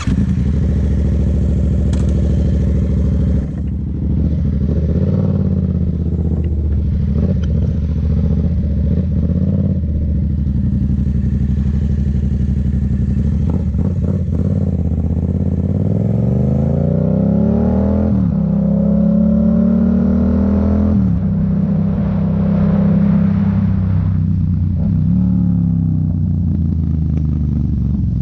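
A Yamaha MT-07's parallel-twin engine running loud through a full-system Black Widow exhaust with no baffle fitted. The note holds steady at first, then climbs and drops back several times in the second half as the throttle is opened and closed.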